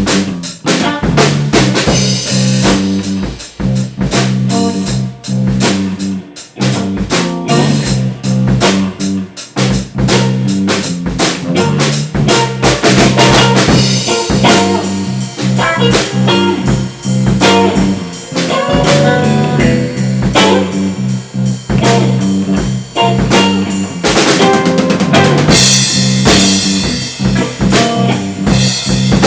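A rock band playing: a drum kit with kick, snare and rimshots keeps a steady beat under a repeating bass line and guitar, with cymbals crashing busier near the end.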